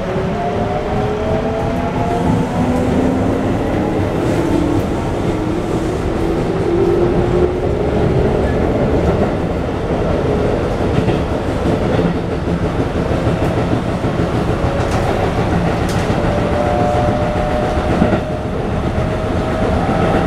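Toyo GTO-VVVF inverter and traction motors of a Keikyu 1500-series train whining as it accelerates, several tones rising in pitch over the first half and again near the end. Beneath them runs the steady rumble of wheels on rail with some clickety-clack of rail joints, heard inside the passenger car.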